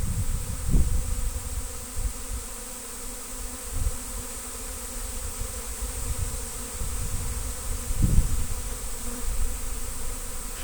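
A large swarm of honey bees flying in, their wings making a steady, dense buzzing drone. A couple of low rumbles sound on the microphone, about a second in and again about eight seconds in.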